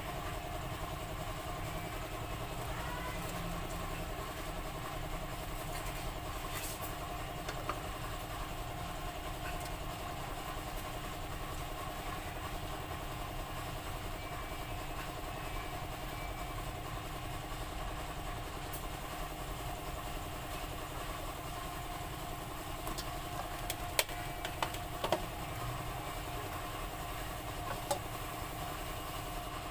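A steady motor hum holding a few constant tones, with a few short, sharp knocks near the end.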